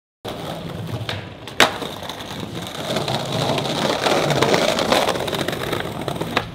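Skateboard wheels rolling on pavement, a steady rumble that grows louder in the middle as the rider pushes, with a sharp clack of the board about a second and a half in and a few lighter knocks.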